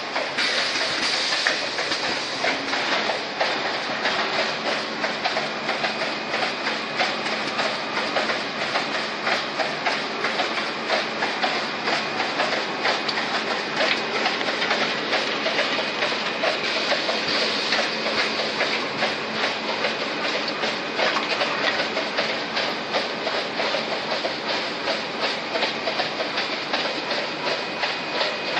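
Automatic plastic cup counting and flow-wrap packaging line running, making a continuous, evenly repeating mechanical clatter over a steady hum.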